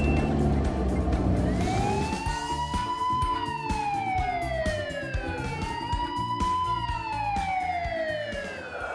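A siren wailing twice, each wail rising slowly and then sliding down, over background music with a steady beat.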